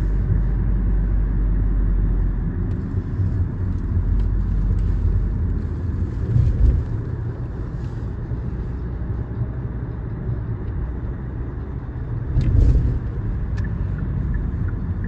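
Car driving, a steady low rumble of engine and tyres on the road, swelling louder twice.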